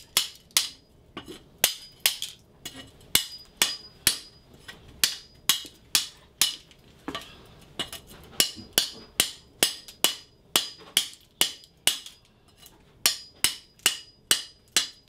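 Claw hammer striking a hand scraper held against the floor, about two to three sharp ringing metal blows a second with a couple of brief pauses, chipping old linoleum and tile off the subfloor.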